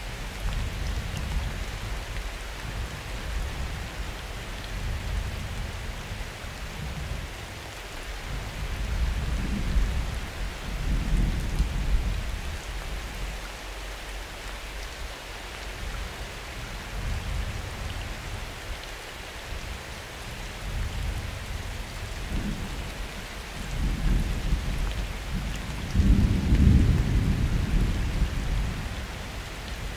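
Steady rain falling, with rolling thunder rumbling low underneath during a thunderstorm. The rumbles swell twice, about a third of the way in and again near the end, where they are loudest.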